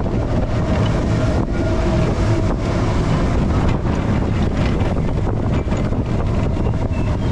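Expedition Everest steel roller coaster train running along its track at speed, with heavy wind rushing over the microphone.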